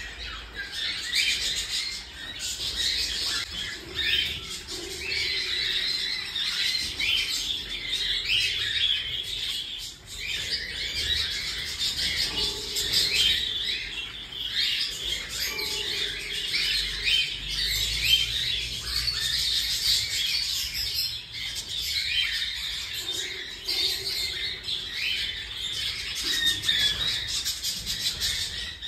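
Baby cockatiel chicks calling continuously with dense, repeated short squawking chirps: the food-begging calls of chicks old enough for hand-feeding.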